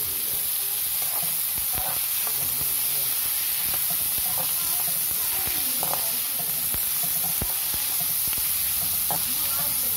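Chopped onions sizzling steadily in hot oil in a kadai, stirred with a perforated slotted spoon that scrapes and clicks against the pan now and then.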